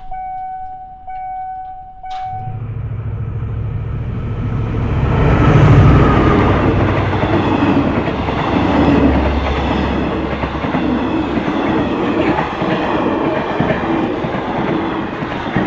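A diesel-hauled express train passes over a level crossing. The locomotive's engine rumble builds to its loudest about six seconds in, followed by the steady clatter of the coaches' wheels over the rail joints. A steady high tone stops about two seconds in.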